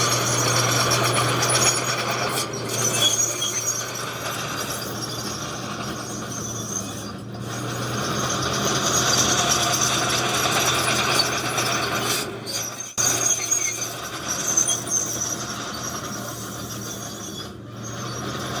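Heavy diesel earthmoving machinery at work: a steady low engine drone under continual high metallic squealing and scraping, the kind crawler tracks make while a bulldozer pushes rock. The sound drops out briefly a few times.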